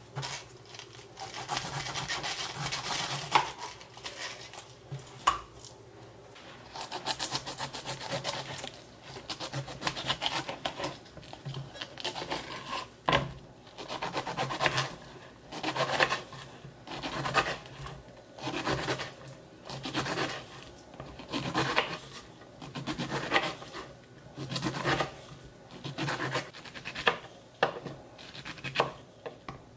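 A kitchen knife cuts through the rough skin and fibrous flesh of a whole pineapple on a cutting board, making rasping, scraping strokes. The first half holds long stretches of scraping, and the later part holds separate cuts about one a second.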